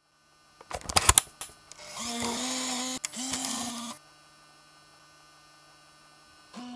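Mechanical clicks and clunks, then a loud, steady whirring hum that dips in pitch once, typical of a MiniDV camcorder loading a tape and running its transport. Near the end a short tone bends downward in pitch.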